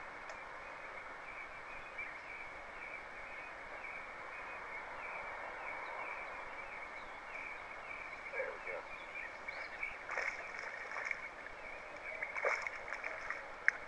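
Small largemouth bass being reeled in and lifted from the water: a run of irregular splashes and rustles in the second half, with the sharpest splash near the end. A steady high-pitched outdoor drone runs underneath.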